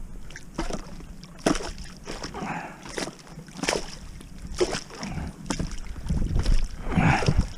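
Shallow water splashing and sloshing in a run of short bursts about a second apart, the biggest near the end, as a duck decoy's cable stuck in rocks is tugged to work it loose.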